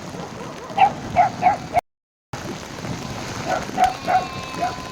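A dog barking in short, sharp yelps: a quick run of four, a sudden break of total silence, then several more.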